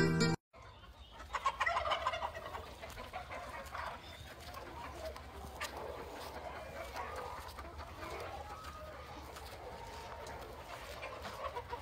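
A flock of chickens clucking and calling in their pens, busiest a second or two in, over a steady low hum.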